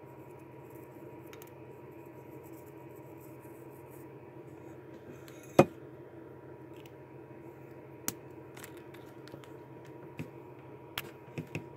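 Markers being handled on a table: a sharp plastic click about halfway through and a few smaller clicks and taps near the end, over a steady low room hum.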